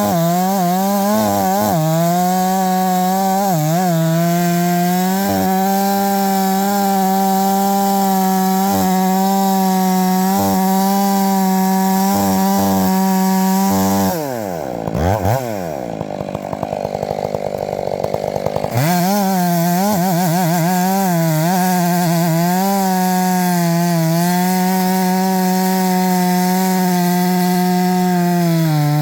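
Two-stroke chainsaw running at full throttle through a log, its engine pitch wavering under the load of the cut. Past the middle the throttle is let off and the engine winds down for a few seconds, then revs back up and carries on cutting.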